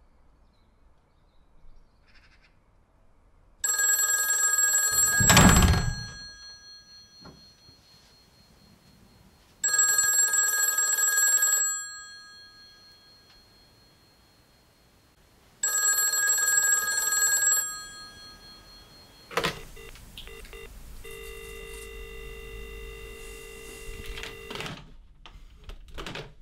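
Hotel-room desk telephone ringing three times, each ring about two seconds long with a pause between, and a heavy thump in the middle of the first ring. About 19 seconds in there is a sharp click, then a steady electronic tone for a few seconds.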